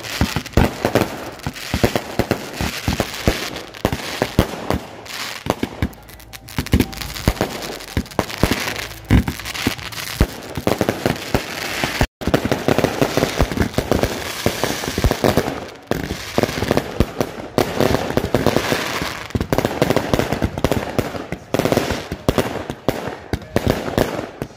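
Consumer fireworks going off in a rapid, continuous string of sharp bangs and crackles.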